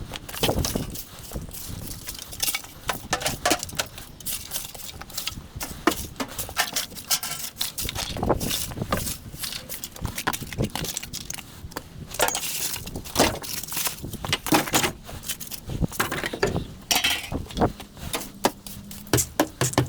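Irregular knocks, light metallic clinks and scrapes from hand work on a stripped fridge, with a few longer scraping strokes about twelve and seventeen seconds in.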